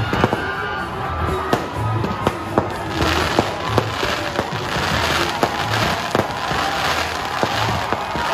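Fireworks going off: a run of sharp bangs and pops, with a dense hissing crackle that swells about three seconds in as cascading spark effects stream down. Music with a steady low beat plays underneath.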